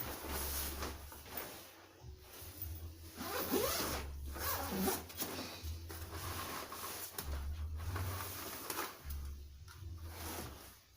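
A ring light's packaging being opened and handled: irregular rustling, scraping and sliding sounds, over a steady low hum.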